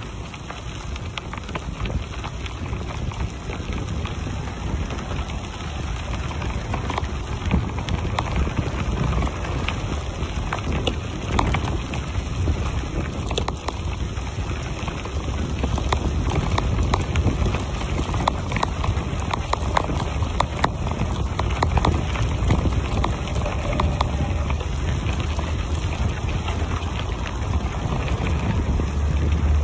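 Bicycle tyres rolling over a loose gravel road: a continuous crunch with many small stone crackles, and wind buffeting the microphone, heavier near the end.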